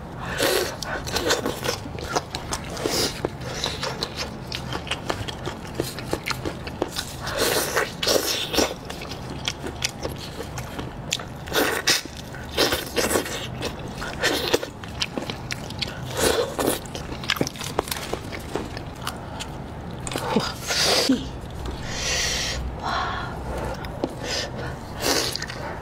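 Close-miked eating sounds: chewing and sucking spiced sheep's head meat off the bone, with irregular wet mouth sounds. Near the end, cooked meat is pulled apart by gloved hands.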